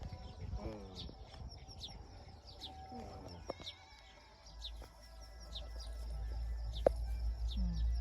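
Chickens calling: short, high, falling peeps repeat about twice a second, with a few lower falling clucks. A low rumble builds from the middle, and there is one sharp click near the end.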